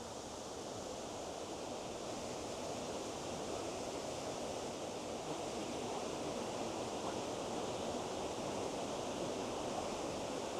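Steady rushing of a fast-flowing burn and its waterfalls, a constant hiss of water that grows slightly louder.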